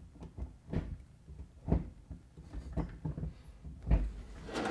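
Hand tools working the shift linkage under a car: a series of short clicks and knocks, roughly one every half second, the loudest about four seconds in, as the linkage's stabilizer rod and clamp are tightened.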